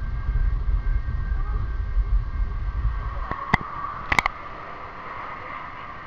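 Rapids-ride raft moving along its water channel: a deep rumble that dies away about three seconds in, a few sharp knocks close together, then a steady rushing noise.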